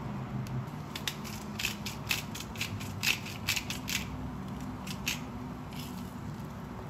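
A hand spice grinder being twisted to grind salt and pepper: a quick run of dry, crunching clicks starting about a second in and lasting some four seconds.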